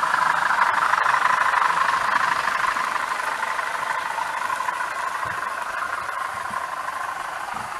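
Model Class 20 diesel locomotive hauling loaded PTA wagons along the track: a steady whir of motor and wheels that eases slightly after the first couple of seconds.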